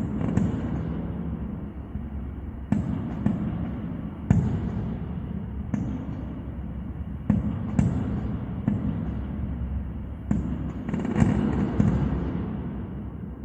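Fireworks exploding overhead: about a dozen sharp bangs a second or so apart over a continuous rumble and crackle, dying away near the end.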